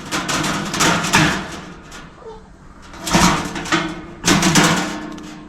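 Galvanized sheet-steel panels of a chicken nesting box clanking and rattling in bunches as they are worked and knocked into place during assembly.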